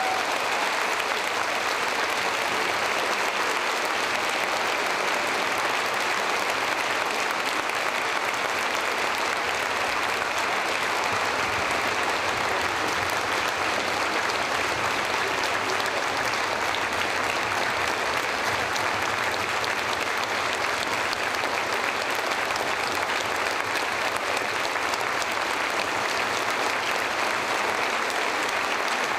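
Concert audience applauding steadily: many hands clapping in a sustained ovation at the close of an orchestral performance.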